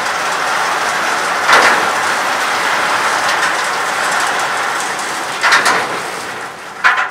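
Wire-mesh painting storage rack rolling along its track as it is pushed back into the rack system, a steady rolling noise with a louder knock about a second and a half in and two more near the end.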